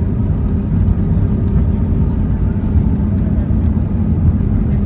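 Steady low rumble of an Airbus A320 heard from inside the passenger cabin, with a faint constant hum riding on it.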